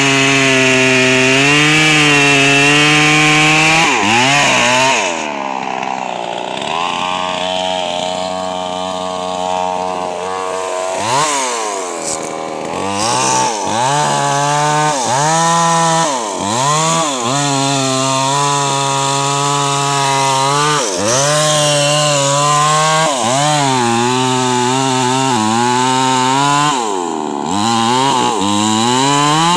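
Large two-stroke chainsaw with a 22-inch bar cutting into a mahogany trunk. The engine revs high under throttle and repeatedly drops back and picks up again, with a stretch of steadier, lower-pitched running about five seconds in.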